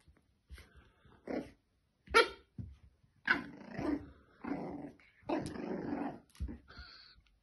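French bulldog puppy barking and growling at its reflection in a mirror: a series of short barks and growls, the loudest about two seconds in.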